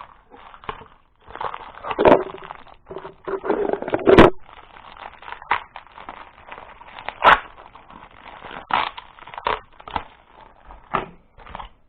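Crinkly plastic packaging crackling as it is torn open and handled, with scattered sharp clicks of small plastic parts being knocked about; the loudest clicks come about two, four and seven seconds in.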